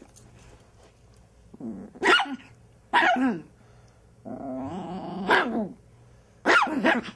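Chihuahua puppy growling and barking in play-fighting: about four short outbursts, the longest a drawn-out growl that ends in a bark about five seconds in.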